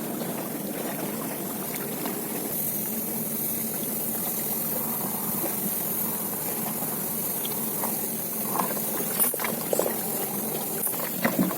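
Steady rush of river water, with a few light knocks and clicks in the last few seconds.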